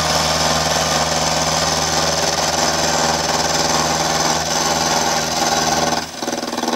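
Milling machine spindle running while an end mill takes a light facing cut across the top of a small engine's cylinder casting, the table hand-cranked in X and Y around its edge: a steady machine hum under a hiss of cutting. About six seconds in the low hum drops away and the sound gets quieter.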